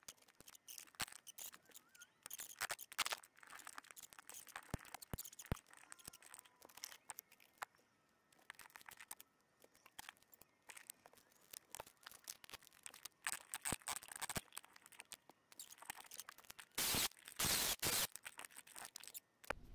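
Faint, scattered clicks, taps and scrapes of hand tools and metal being handled while working the rubber grip off a small chopper blade, with a louder rushing, hissing noise lasting about two seconds near the end.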